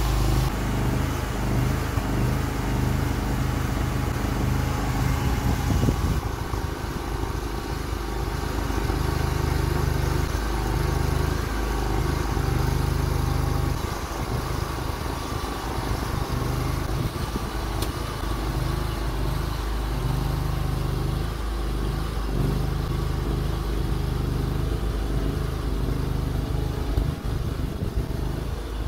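Engine of a homemade mini excavator running steadily and driving its hydraulic pump, its note shifting and wavering as the boom and bucket are worked, most noticeably about six seconds in and again about halfway through.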